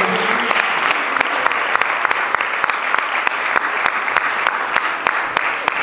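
Congregation applauding: many hands clapping in a dense, steady patter that thins slightly near the end.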